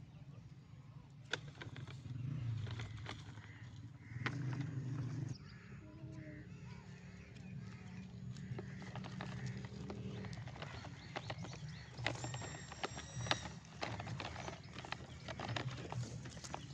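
Plastic toy dump truck pushed over dry, stony dirt, its wheels crunching and clicking over soil and twigs in irregular crackles. Crows caw now and then.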